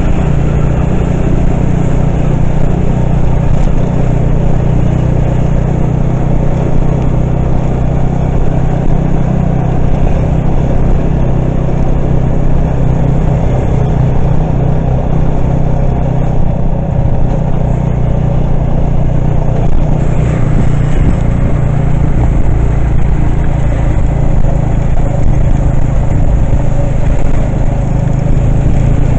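A vehicle's engine running steadily with road noise, heard while riding in it: a loud, unbroken low drone with no let-up.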